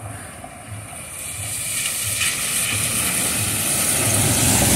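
Car tyres hissing on a wet road, growing steadily louder as a car approaches and passes close, over a low engine rumble.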